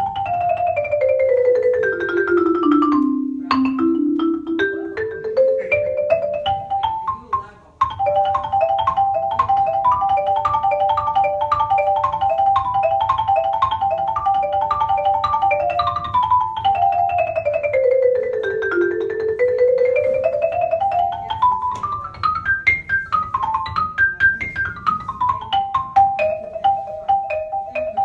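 Yamaha rosewood marimba struck with two yarn mallets, playing fast scale runs that sweep down and up the keyboard, with a passage of quick repeated broken figures in the middle. There are brief breaks in the playing about 3.5 and 7.7 seconds in.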